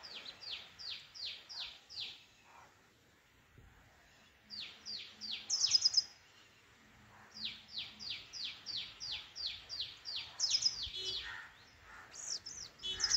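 Sunbird calling: a run of sharp, downward-slurred chips, about three a second, coming in three bursts with short pauses between, with a few higher trilled notes mixed in.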